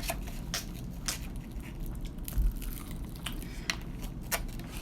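Crunching of fried chicken being bitten and chewed close to the microphone: a string of irregular sharp crackles.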